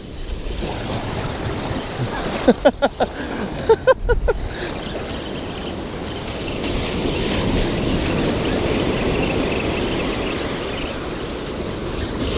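Surf washing steadily onto the beach, with wind on the microphone. About two to four seconds in, a spinning fishing reel is cranked in two quick bursts, giving a run of rapid whirring sweeps.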